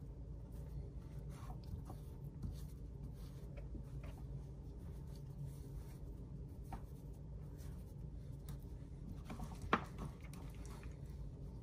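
Hands patting and rubbing dry batter flour onto a raw half chicken in a ceramic baking dish: faint soft patting and rustling, with scattered light ticks over a low steady hum. One sharp click about ten seconds in.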